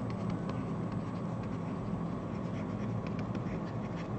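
Faint scratching and light taps of a stylus writing numbers and a word on a pen tablet, over a steady low hum of room noise.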